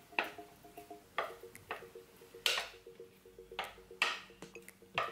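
Red spatula scraping and knocking against the side of a mixing bowl as thick banana bread batter is pushed out into a loaf pan: a series of short, sharp scrapes about a second apart.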